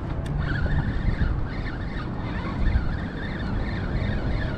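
Spinning reel being cranked to wind in a hooked fish, a steady wavering whir, over low wind rumble on the microphone.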